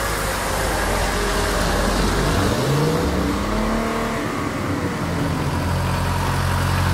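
Car engine sound effect: engine noise that climbs and then falls in pitch near the middle, settling into a steady low drone.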